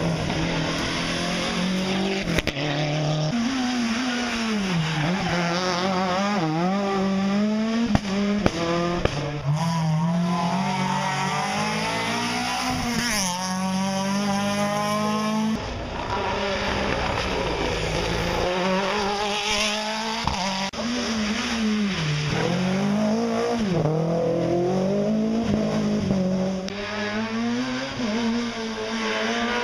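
Rally car engines revving hard through tarmac hairpins, one car after another, each engine note climbing and then dropping with every gear change, with tyre squeal. A few sharp cracks come about eight seconds in.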